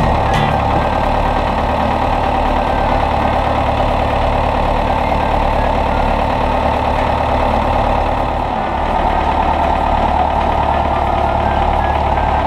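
David Brown tractor's engine running steadily as it works its front loader to move a large log.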